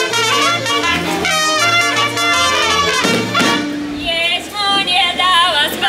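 Live band music with brass playing over a steady bass line; a held note ends about four seconds in and a high voice begins singing with vibrato.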